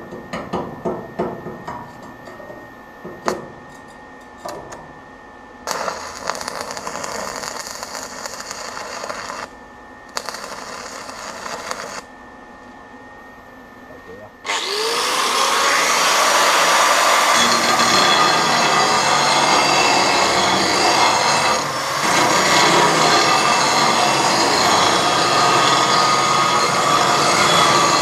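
Grinder spinning up about halfway through, then grinding steadily along the seam of tacked 5 mm steel plate to prep it for a butt weld. Before that come clanking knocks and two short bursts of scraping noise.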